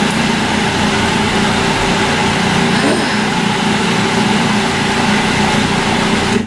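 Food processor motor running at full speed, its blade grinding horseradish and water into a paste: a loud, steady whirring hum that cuts off suddenly at the very end.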